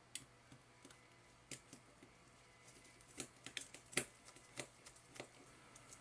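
Light, irregular clicks and taps of small plastic and circuit-board parts being handled as a mouse's circuit board is fitted into its plastic base. The loudest tap comes about four seconds in.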